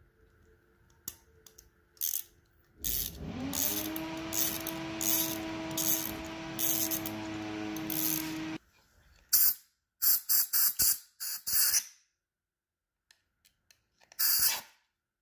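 Compressed-air blow gun hissing in short blasts into the freshly tapped exhaust-bolt holes of the cylinder head, clearing them of debris and cleaner. About three seconds in, an air compressor starts with a rising hum, runs steadily for about six seconds and stops. Five or six quick blasts follow, and one more near the end.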